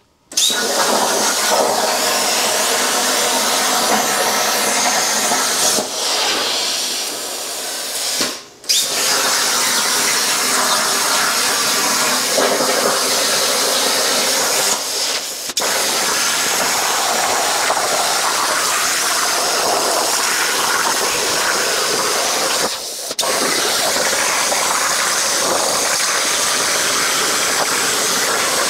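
Plasma cutting torch on a CNC plasma table cutting 14-gauge steel: a loud, steady hiss of the arc and its compressed air. It breaks off briefly about eight seconds in and dips again around twenty-three seconds in.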